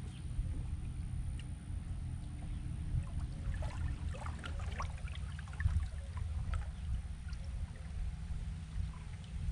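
Water lapping and trickling against a bass boat's hull over a steady low hum, with a patch of small splashes and ticks in the middle.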